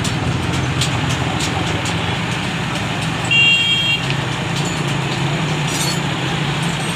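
Diesel engines of an excavator and a farm tractor running with a steady low drone amid street traffic. A short, high-pitched horn beep sounds about three seconds in.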